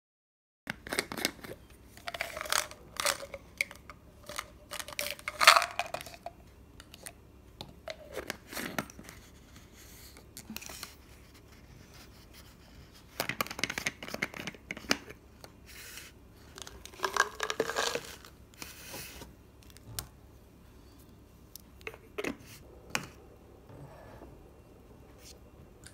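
Plastic supplement bottles being handled and opened: caps clicking and scraping, and hard capsules tipped out into a hand. The sounds come in several short clusters of clicks and rustles.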